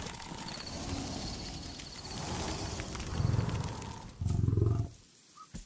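Lion roaring: a run of deep roars, the two loudest about three and four seconds in, after which it falls quiet.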